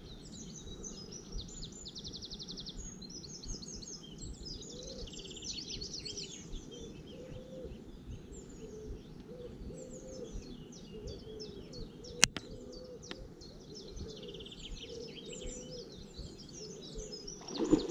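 Songbirds singing in a busy chorus of chirps and rapid trills over a low, steady background noise, with one sharp click about twelve seconds in.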